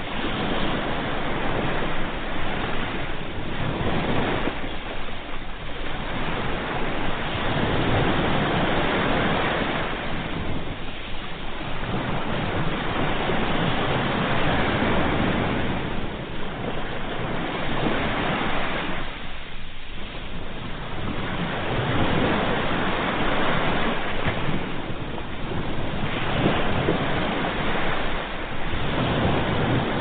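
Small waves breaking and washing up over a sandy beach: a continuous hiss of surf that swells and eases every several seconds.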